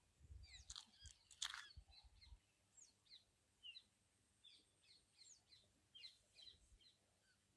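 Birds chirping faintly, many short high calls scattered throughout. A few low thumps and sharp knocks in the first two seconds or so.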